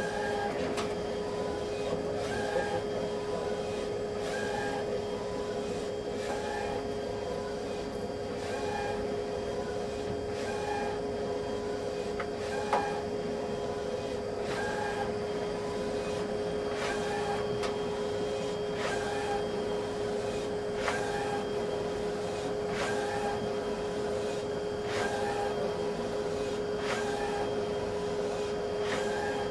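Large drum plotter running as it draws: a steady motor hum with a constant tone, and a short mechanical sound repeating about every two seconds as the carriage sweeps and the paper steps forward. One sharp click about halfway through.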